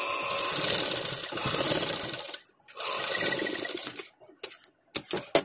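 Domestic sewing machine stitching elastic onto a cloth face mask, running in two steady runs with a brief stop between them, then a few sharp clicks near the end as the thread is snipped with scissors.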